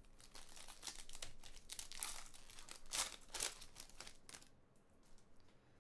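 Crinkling and tearing of a plastic trading-card pack wrapper being ripped open, a quick run of rustles that dies away about four and a half seconds in.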